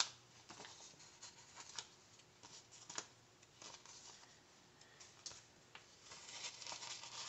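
A paper sticker sheet being handled and slid over a planner page: faint rustling with a few soft taps and clicks, the rustling busier near the end.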